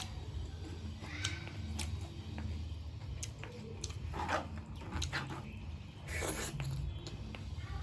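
Close-miked chewing and lip smacking of someone eating rice and pork, with short wet clicks scattered through and a couple of louder smacks in the second half, over a steady low hum.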